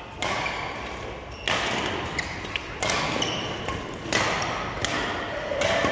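Badminton rackets striking a shuttlecock in a doubles rally: five sharp hits about a second and a half apart, each trailing off in the hall's echo, with short squeaks of court shoes between them.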